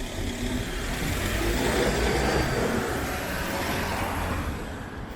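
A road vehicle passing close by, its engine rumble and tyre noise swelling to a peak about two seconds in and then fading away.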